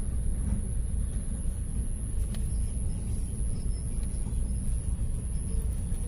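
Steady low outdoor rumble with a fluttering loudness, with a faint steady high-pitched whine over it and one faint click a little past two seconds in.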